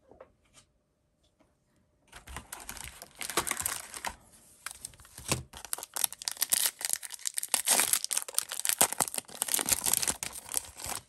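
Foil trading-card pack wrapper being torn open and crinkled, a dense irregular crackling that starts about two seconds in and goes on to the end.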